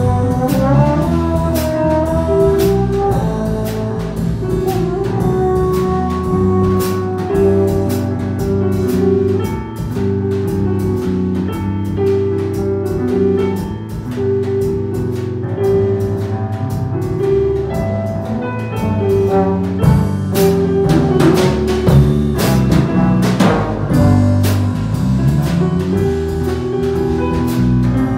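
Small jazz band playing an instrumental passage live, with trombone, electric keyboard and drum kit.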